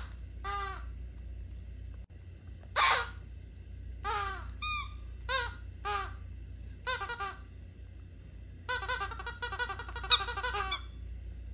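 Purple rubber squeaky toy squeaking as a dog bites down on it: single short squeaks at uneven intervals, then a quick run of squeaks lasting about two seconds near the end.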